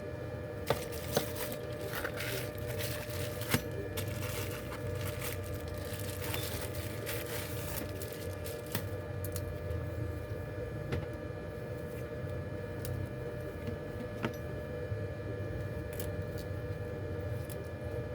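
A few sharp clicks and light scraping from small tools working on a smartphone, over a steady hum.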